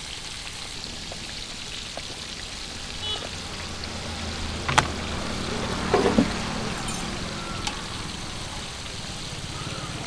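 Masala-coated quail pieces deep-frying in hot oil in an iron kadai: a steady sizzling hiss of bubbling oil. A sharp click about five seconds in and a short knock around six seconds break over it.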